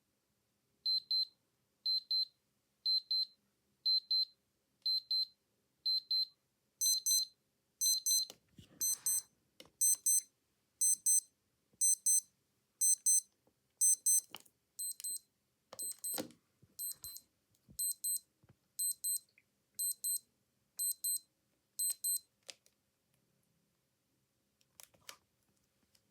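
Digital watch alarms beeping in short bursts about once a second. A thin, high single-pitched beep runs until about six seconds in, then a harsher beep from another watch takes over and stops about twenty-two seconds in. A few clicks and knocks come in between and near the end.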